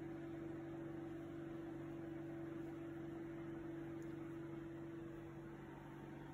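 Steady low hum with a faint hiss, unchanging throughout: background room noise.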